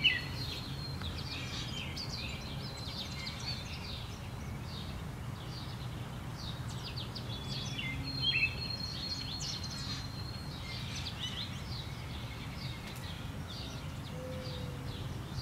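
Wild birds chirping and whistling, many short calls with a longer held whistle about halfway through, over a steady low background noise.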